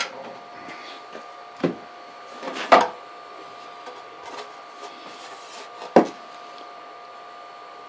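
Handling knocks as an iron weight is lifted off a thin plywood sheet and the sheet is picked up off its wooden stand. There are a few clunks, the loudest about three seconds in and a sharp one about six seconds in, over a faint steady electrical whine.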